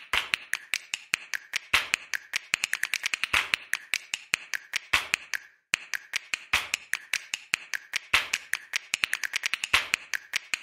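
A fast run of sharp clicks, about six a second, with a short break about halfway through.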